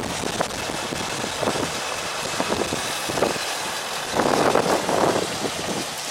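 Wind buffeting the microphone in uneven gusts, loudest from about four seconds in for a second and a half.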